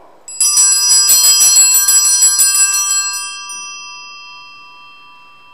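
Altar bells shaken rapidly for about two and a half seconds, then left to ring out and fade slowly. They mark the elevation of the consecrated host at Mass.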